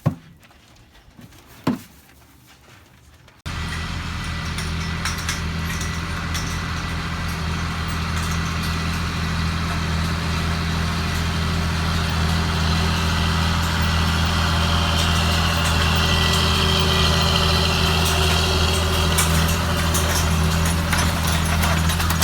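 A John Deere 8320 tractor's diesel engine running steadily with a deep hum, coming in abruptly about three and a half seconds in after a few quiet seconds with a couple of clicks.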